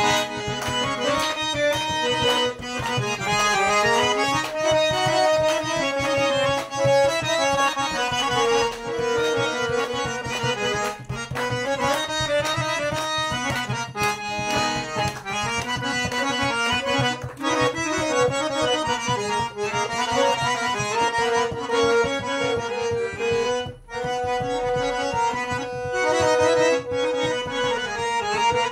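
Instrumental background music led by accordion, with a steady percussion beat under held notes and a moving melody.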